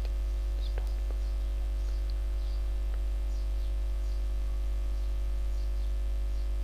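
Steady low electrical mains hum from the recording setup, with a few faint clicks and scattered faint high chirps over it.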